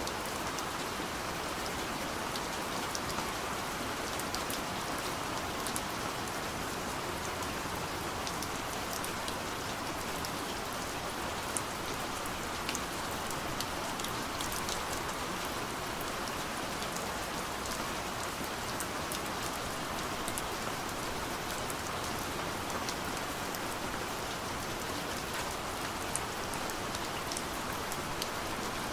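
Steady soft rain pattering on a window, an even hiss with many small drop ticks scattered through it.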